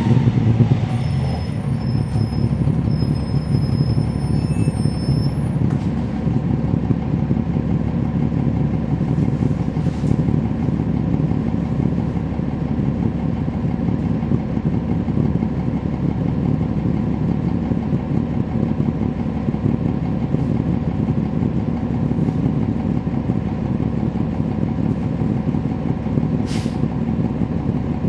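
Cummins ISL9 inline-six diesel engine of a NABI 40-foot transit bus running steadily under way, heard from inside the cabin with a low, even rumble and road noise. A brief high click comes near the end.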